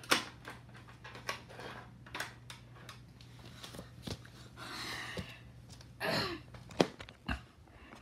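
Scattered plastic clicks and taps of a fire alarm pull station being closed and handled after a reset, with a rustle about midway and two sharper knocks near the end.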